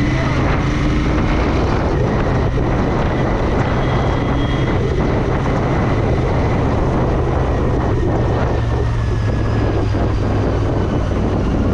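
Royal Enfield Interceptor 650's parallel-twin engine running steadily as the motorcycle cruises down the road.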